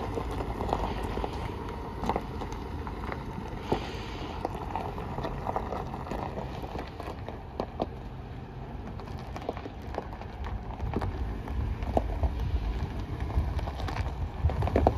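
2004 Chevrolet Avalanche's V8 running as the truck drives slowly across gravel, a low engine rumble with the tyres crunching and popping on loose stones. It grows louder over the last few seconds as the truck draws closer.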